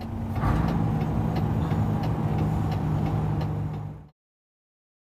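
Mercedes-Benz Actros truck's diesel engine running steadily, heard inside the cab while driving, with a light click repeating about twice a second. The sound cuts off abruptly about four seconds in.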